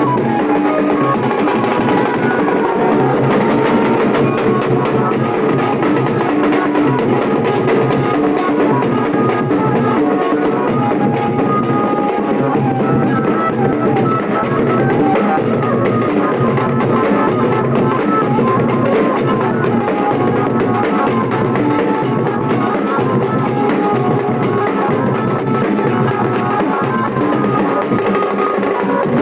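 Nashik dhol ensemble playing: dhol drums beating a steady, driving rhythm with a melody line over them.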